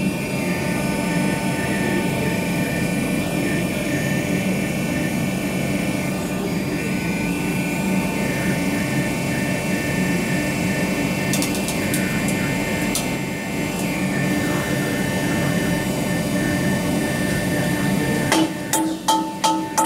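Catalytic-converter alligator shear running with a steady machine hum while a converter's metal casing is cut open. A few light clicks come about halfway through, and a quick run of sharp metallic knocks comes near the end as the cut converter and its monolith are worked loose.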